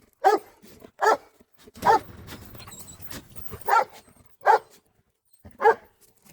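Dog giving six short, sharp barks, three in quick succession, then a pause of about a second and a half, then three more.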